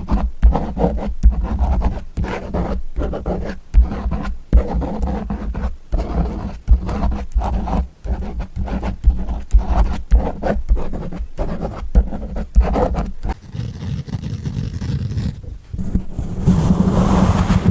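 Close-miked ASMR trigger sounds: quick scratching and rubbing strokes on an object, several a second with short pauses between, turning into a denser steady rustle near the end.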